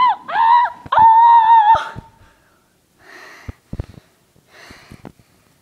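A boy screaming in mock pain: short high-pitched cries, then one held scream that stops about two seconds in. Two short, heavy breaths follow.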